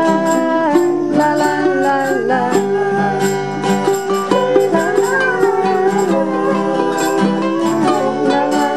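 Background music with plucked strings over a steady, rattling percussion beat.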